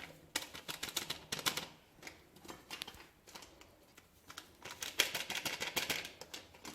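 Quick runs of light clicks and taps from baking powder being added and worked into cake batter by hand, in two bursts a few seconds apart.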